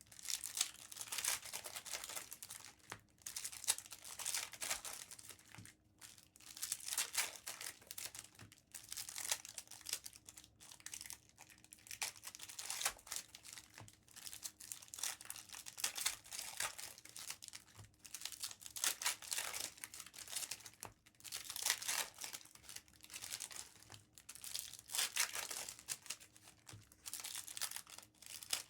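Foil wrappers of Topps Chrome trading card packs being torn open and crinkled by hand, in repeated bursts every second or two.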